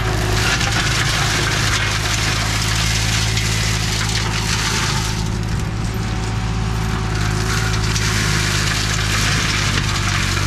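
Green Climber LV600 remote-controlled slope mower's Kohler engine running steadily while its mulching head shreds olive tree branches with a dense crackling and splintering. The crackle eases for a couple of seconds around the middle, then returns.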